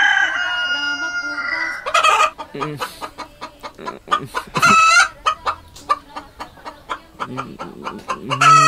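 Chickens: a rooster crowing, a long call held for about two seconds at the start, then hens clucking in many short, quick calls, with further crow-like calls later on.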